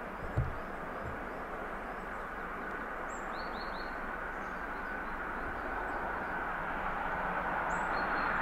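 Distant steam train, DR class 35 locomotive 35 1097 working a special train, heard across the river valley as a steady rushing rumble that slowly grows louder as it approaches. Birds chirp a few times, and there are two low thumps near the start.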